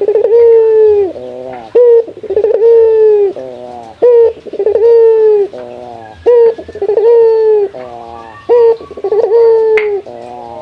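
A male puter (domestic ringneck dove) cooing repeatedly, about one phrase every two seconds. Each phrase is a short note, then a long drawn-out coo that sags slightly in pitch, then a quick stuttering run of notes. It is a cock's call to a rival male.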